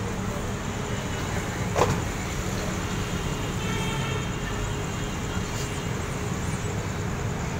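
Steady background din of a busy street-side restaurant kitchen, a traffic-like rumble, with one brief sharp sound about two seconds in.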